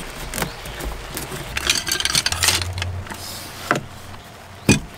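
Wicker baskets and a wicker holder of metal and wooden cooking utensils being handled on a wooden counter: scattered light knocks and clatters, the loudest a sharp knock near the end.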